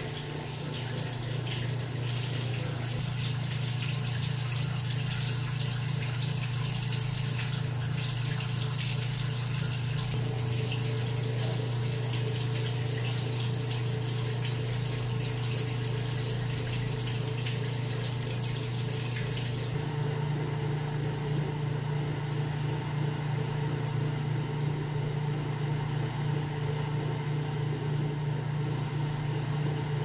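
GE Spacemaker portable washer (model WWP2050SAXWH) pumping out its wash water, with a steady motor-and-pump hum and the rush of draining water. About 20 seconds in, the water hiss thins and the hum shifts slightly higher as the tub empties.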